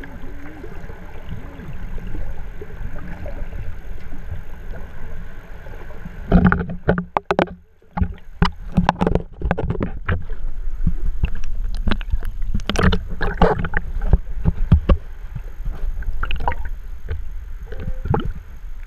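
Water rushing and sloshing around an underwater camera: a steady low rumble. From about six seconds in comes a run of splashes and bubbling, with a brief drop-out just before eight seconds.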